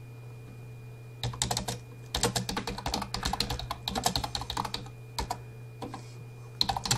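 Typing on a computer keyboard: rapid runs of keystrokes start about a second in, thin to a few single taps, and pick up again near the end.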